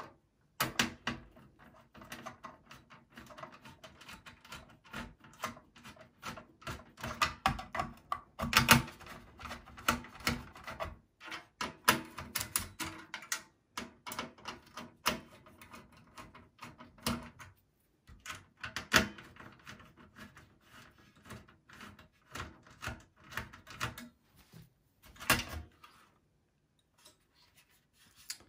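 Phillips screwdriver clicking and scraping in the screws that hold down a CPU heatsink-fan cooler, with knocks as the cooler and metal PC chassis are handled. The clicks run irregularly, with a few louder knocks, and fall quiet a couple of seconds before the end, as the cooler comes free.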